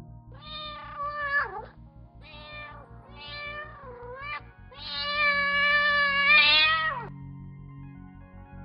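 Domestic cat meowing four times, the last meow the longest and loudest at about two seconds.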